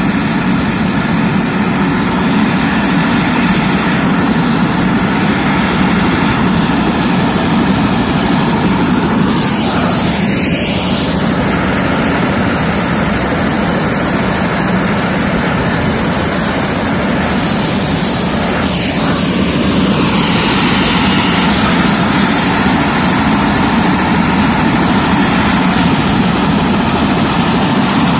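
Eurocopter EC130 helicopter running on the ground with its turboshaft engine on and main rotor turning, a loud steady rotor and engine noise under a constant high turbine whine.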